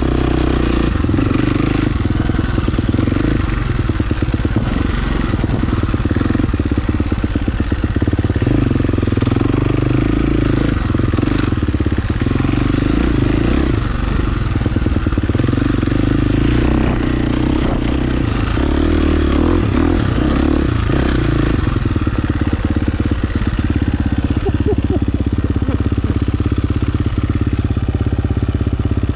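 Dirt bike engine running under way, its note rising and falling with the throttle as it is ridden along a trail.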